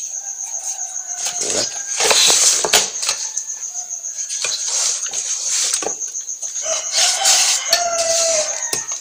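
A cricket chirps steadily in a high, pulsing tone. Chickens call in the background. Two louder, noisy bursts of rustling come about two and seven seconds in.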